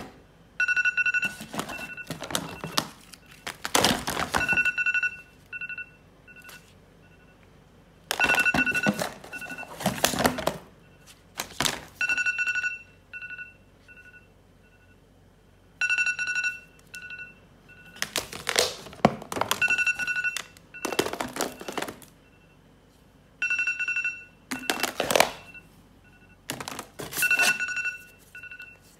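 Old mobile phones clattering and knocking together as a hand rummages through a cardboard box of them, over a phone's ringtone or alarm beeping in repeating groups of short high tones.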